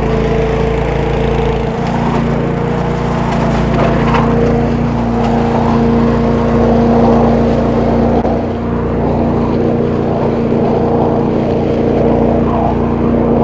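Agri-Fab Mow-N-Vac leaf vacuum's engine and impeller running steadily with a constant hum while the remote hose sucks up dry leaves. A rushing hiss of air and leaves runs through the hose, with a few light clicks of debris going through.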